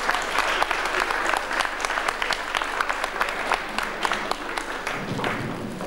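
Audience applauding, a dense run of clapping that thins out near the end.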